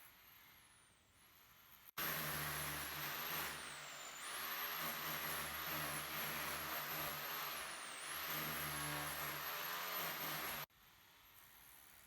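A motor running steadily for several seconds, its high whine dipping in pitch and recovering twice; it starts and cuts off abruptly.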